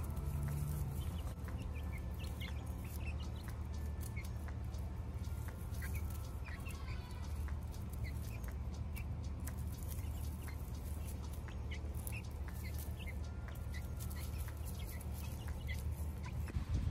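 A small flock of young pullets peeping and chirping: many short, high calls scattered irregularly, over a low steady background rumble.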